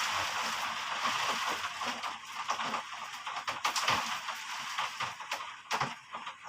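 Rain falling: a steady hiss of heavy rain that thins about two seconds in to a patter of separate sharp drop impacts.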